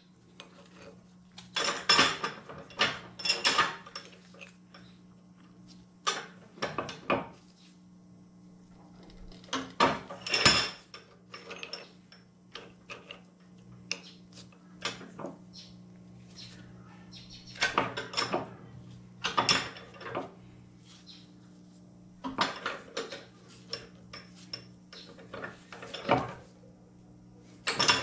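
Bench vise being worked to press a bronze trunnion bushing into an LS3 rocker arm: groups of short metallic clicks and clanks from the vise and the steel parts in its jaws, with quiet gaps between, over a faint steady hum.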